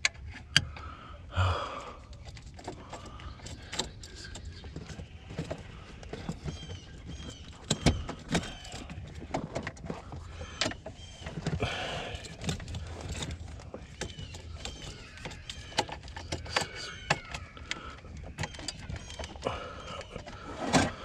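Irregular clicks, taps and rattles of hands working plastic wiring connectors and small parts at a car's steering column.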